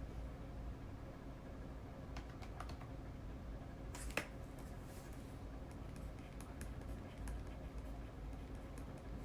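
Keys being tapped in scattered, irregular clicks, with one sharper click about four seconds in, over a low steady room hum.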